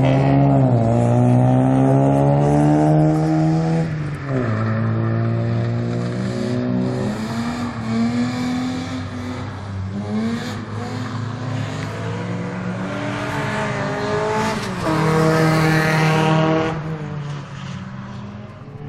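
Car engines running hard around a racing circuit: the engine note climbs steadily as a car accelerates, then drops sharply at each gear change or lift, three times. Loudest at the start and again about fifteen seconds in.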